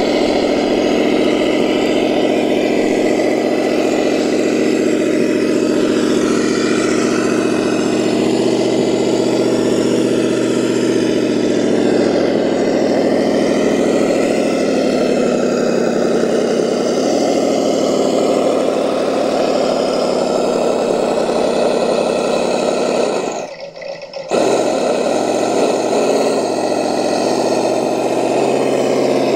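Steady engine-like drone, running evenly throughout, that drops away briefly about three-quarters of the way through.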